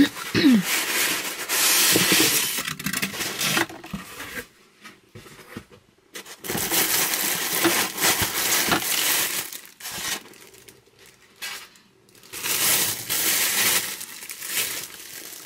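Packaging being unwrapped by hand: paper crinkling and tearing in three spells of a few seconds each, with short pauses between.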